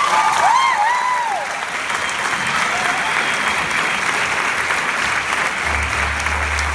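Theatre audience applauding, with a few high whooping cheers that rise and fall over the first second or so. A steady low hum comes in near the end.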